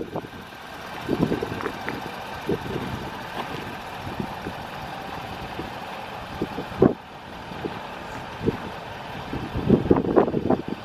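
Ford Super Duty pickup truck idling: a steady hum with a faint steady whine, and irregular soft crunches of footsteps on gravel.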